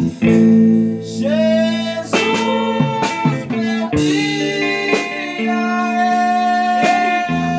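Blues-rock band music: guitar playing sustained and bent notes over bass, with drum hits and some singing.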